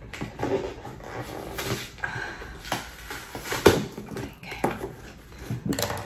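Cardboard box being opened by hand: scissors cutting packing tape and the cardboard flap scraping and tearing, with scattered clicks and a sharp knock nearly four seconds in.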